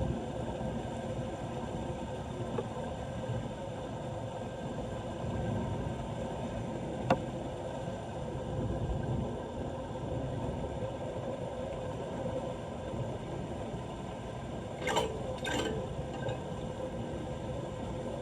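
Steady rush of water, with one sharp click about seven seconds in and two brief scraping noises near the end.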